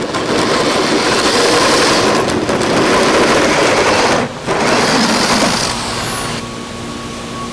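Power drill driving an adjustable hole saw, running loud with a grinding rattle as it cuts. It stops for a moment about four seconds in, runs again, then cuts off near the end, leaving a low steady hum.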